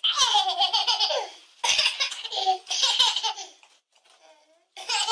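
A toddler laughing hard in repeated high-pitched peals. It pauses about three and a half seconds in and starts again near the end.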